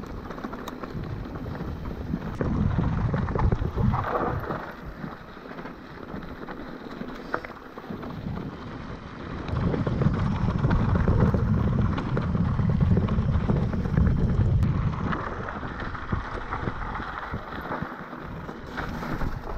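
Wind buffeting the microphone while a mountain bike is ridden over a rough dirt track. The low rumble swells about two and a half seconds in and again for several seconds from about ten seconds in.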